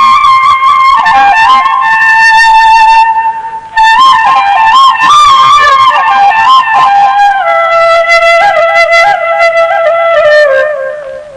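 Sindhi ringtone tune: a solo flute melody, one line of held and ornamented notes stepping up and down. It breaks off briefly about three and a half seconds in, then settles onto lower notes and fades at a phrase end near the end.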